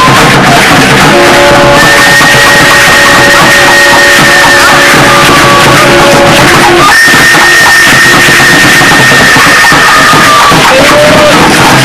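Loud music with long held notes: a high note held for several seconds, twice, over lower sustained notes.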